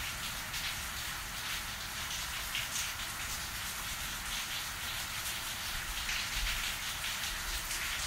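Thunderstorm rain falling steadily, with many individual drops splattering close by.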